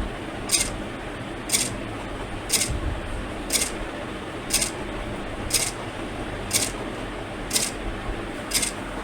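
Sharp ticks, evenly one a second, over a steady low hiss and hum.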